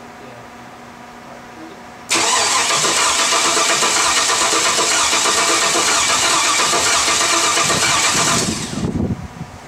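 Starter cranking the 2001 Chevy Suburban's 5.3-litre V8 over without it firing, for about six and a half seconds, starting suddenly about two seconds in and stopping near the end. The fuel relay is pulled, so the engine only turns over to prime oil pressure after a cylinder-head rebuild.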